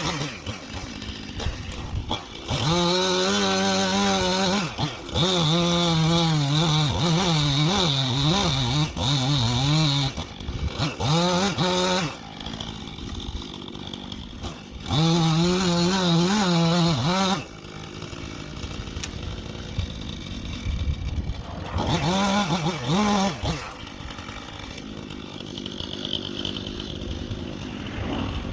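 Gas chainsaw revved up hard four times for a few seconds each, its pitch wavering, dropping back to a low idle in between.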